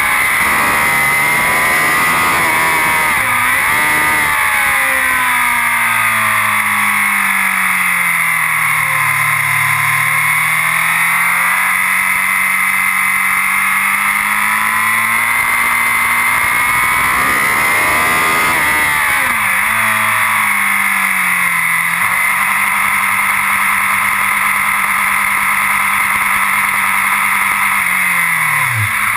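BMW S1000RR inline-four superbike engine heard onboard at speed, with heavy wind rush on the microphone. The revs rise and fall through the gears, with quick downshifts under braking twice. Near the end it holds steady revs rolling down the pit lane, then the revs drop away sharply.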